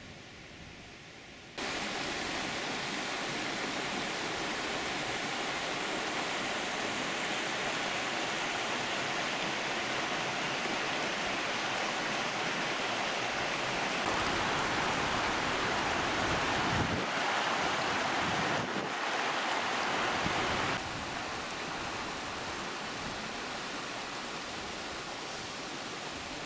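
Mountain stream rushing over rocks: a steady rushing noise that starts suddenly just over a second in and is loudest for several seconds in the middle.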